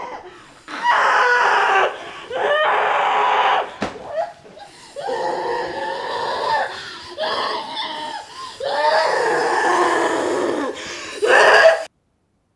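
A woman screaming in distress, a string of loud cries about a second long each with short breaks between them, cutting off suddenly near the end.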